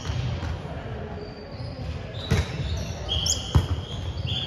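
A volleyball is struck twice, with sharp hits a little over a second apart, the second the louder. Short high squeaks from sneakers on the hardwood court come around the second hit.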